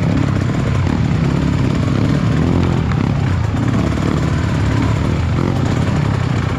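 Trail motorcycle engine running steadily.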